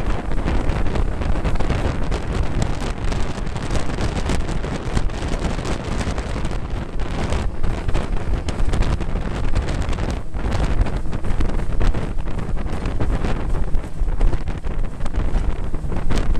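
Wind buffeting the microphone over the steady running of a Mercury 110 9.8 hp two-stroke outboard pushing a small aluminum boat across choppy water.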